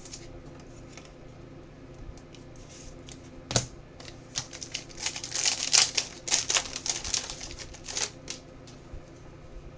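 Trading card pack being handled: a single sharp click, then about four seconds of crinkling and rustling of wrapper and cards.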